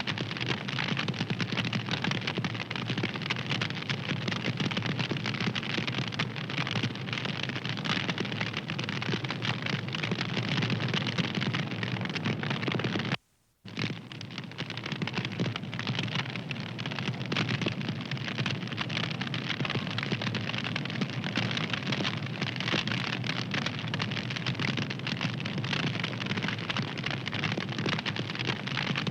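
Wood fire crackling steadily, a dense run of small snaps and pops over a soft rushing hiss, with a half-second break to silence about 13 seconds in.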